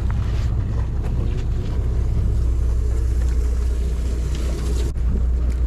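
A sportfishing boat's engine running with a steady low drone.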